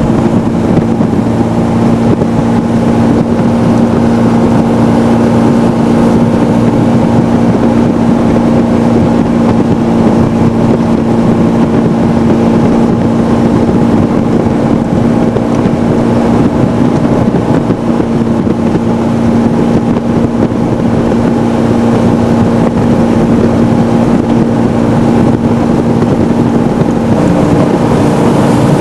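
Jet boat engine running at speed, a loud steady drone with a rush of wind and water over it; the engine note shifts about a second before the end.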